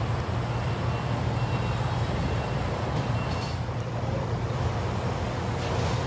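Steady low diesel engine rumble from the crane lowering a steel support column.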